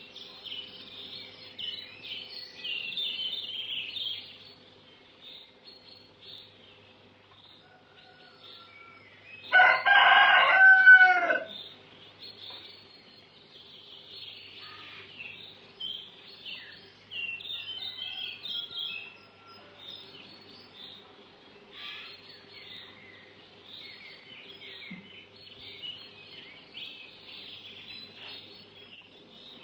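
A rooster crows once, loudly, about ten seconds in, the call falling in pitch at its end, over a steady background of small birds chirping.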